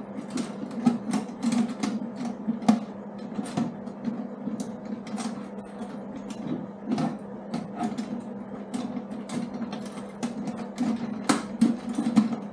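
Irregular metallic clicks, taps and clanks of a toolbox clamp and its fittings being worked by hand against a motorcycle's metal pannier frame, over a steady low hum.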